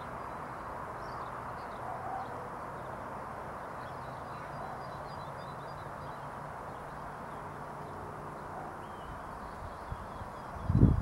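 Outdoor background ambience: a steady hiss with faint, scattered bird chirps. A loud low rumble comes in near the end.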